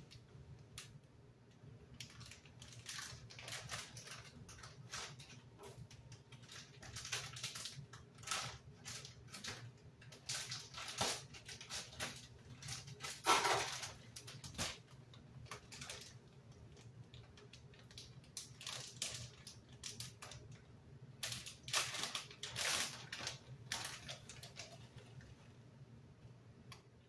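Plastic bag of shredded cheese crinkling and rustling as it is shaken and squeezed out over a bowl, in short irregular bouts, louder about halfway through and again near the end.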